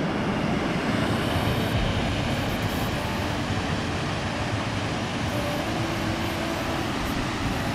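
Water of a river rushing down a waterfall through a narrow rock gorge, a steady, even rush.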